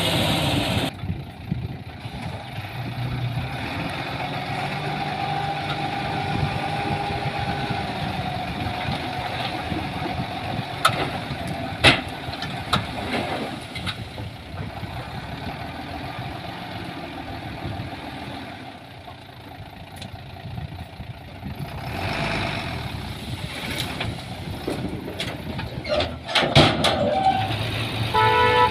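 Heavy diesel construction machinery running steadily, with a few sharp metallic clanks.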